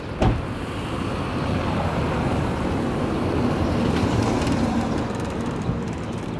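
Road traffic noise, with a vehicle passing that gets louder through the middle and then fades. A short knock about a quarter of a second in.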